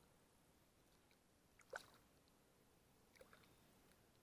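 Near silence, with a faint brief splash of water about two seconds in as a largemouth bass is let go in shallow water.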